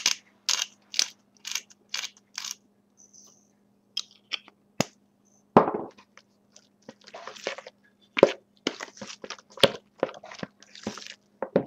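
A metal spoon stirring a thick cheese and sour cream mixture in a bowl, scraping the sides in strokes about twice a second at first, then more irregularly, with one louder knock against the bowl a little past the middle.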